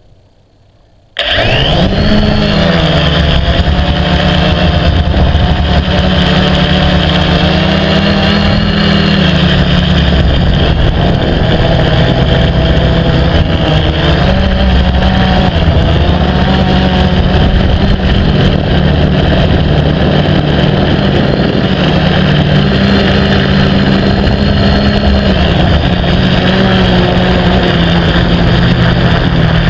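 FPV drone's motors and propellers starting up about a second in, then buzzing loudly, their pitch wavering up and down with the throttle.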